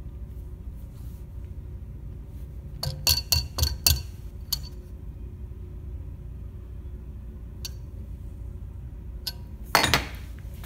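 Sharp metal clinks, five or six in quick succession with a bright ring, as a steel square and a metal orthosis stirrup are handled against a bench vise. A few lighter ticks follow, and a short, louder clank comes near the end as the stirrup is bent in the vise.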